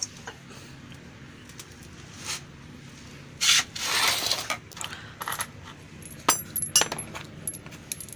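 Scattered bright metallic clinks and taps from tools and small metal engine parts being handled, with two sharp ringing clinks about two-thirds of the way through. A short rushing noise comes about halfway through.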